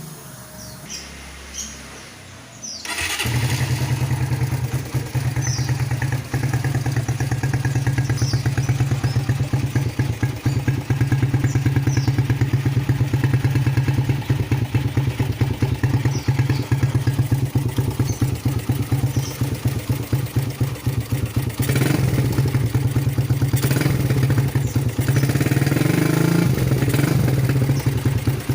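Suzuki Satria FU motorcycle engine with a CKD aftermarket racing silencer, starting up about three seconds in and then idling with a fast, even pulsing exhaust note. It is blipped a little higher a couple of times near the end.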